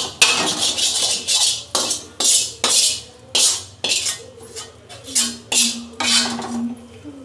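Steel spoon scraping across the bottom of an empty metal kadhai in quick strokes, about two a second, gathering up the last crumbs of the fried dal kachauri filling.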